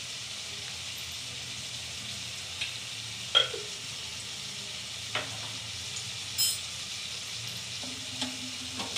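Chicken pieces frying in oil in a kadai with a steady sizzle, as the chilli and coriander powder sit on top before stirring. A few short sharp clicks stand out, the loudest about three and a half seconds in.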